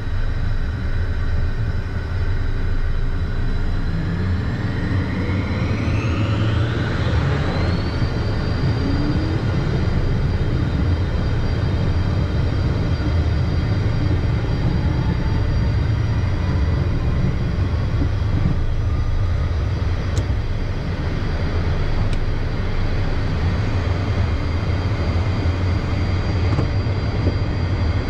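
Twin turbofan engines of a Beechcraft Premier 1A heard from inside the cockpit during the takeoff roll and climb-out. A steady low rumble lies under a whine that rises in pitch for about four seconds and levels off around eight seconds in, as the engines spool up to takeoff thrust.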